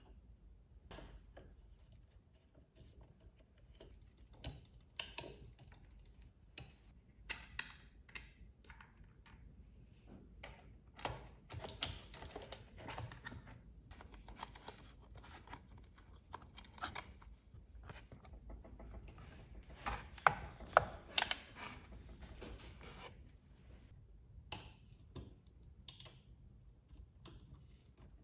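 Clicks, taps and knocks of aluminium extrusion frame parts of a Creality Ender 3 V2 3D printer being handled and screwed together with a hex key. The sounds come scattered, with a quick run of the loudest sharp knocks about twenty seconds in.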